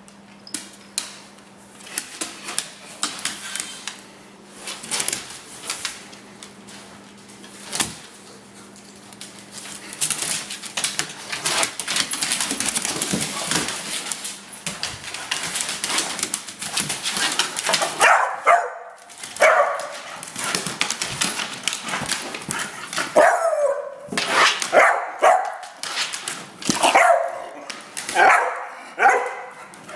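Dogs barking and yipping in short, falling calls, about one a second through the second half, as they chase a laser pointer's dot. Before that, scattered clicks and clatter of their play.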